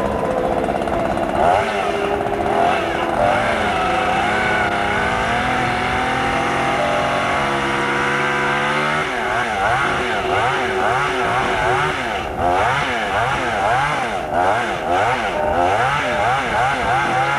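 Chainsaw engine running, its pitch held steady for a few seconds midway, then rising and falling over and over as the throttle is worked.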